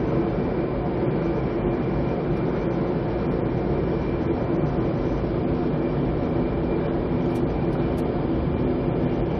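Passenger train running at speed, heard from inside the coach: a steady rumble and hum of wheels on rail with no distinct clickety-clack.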